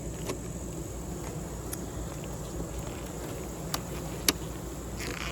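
Honeybees buzzing steadily around an open hive during a frame inspection, with a few short sharp clicks, the loudest about four seconds in.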